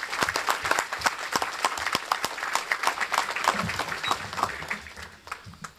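Audience applauding with many hands clapping, the applause thinning out and fading over the last second or so.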